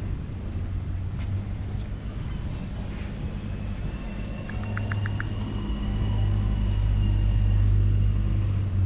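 Low, steady rumble of a motor vehicle's engine, growing louder about six seconds in. A few quick faint clicks come near the middle.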